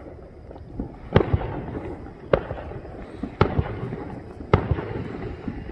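Fireworks going off: four loud, sharp bangs a little over a second apart, with fainter pops between them.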